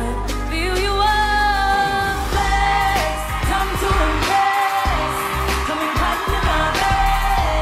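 Live pop song: female singers singing into handheld microphones over a pop beat with heavy bass, the bass briefly dropping out around the middle.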